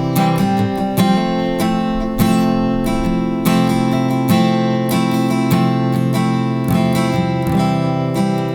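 Acoustic guitar strumming chords as an instrumental passage between sung lines of a worship song.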